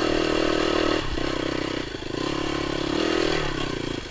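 Dirt bike engine running under throttle, eased off briefly about a second in and again near two seconds, then rolled off near the end.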